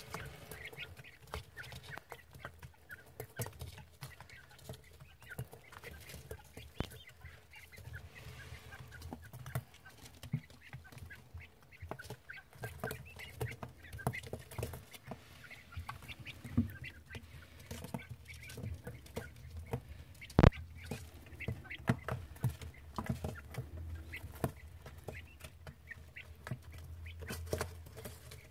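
Three-week-old Japanese quail chicks calling softly and moving about in a brooder, with many small clicks and taps through the whole stretch. A single sharp knock comes about twenty seconds in.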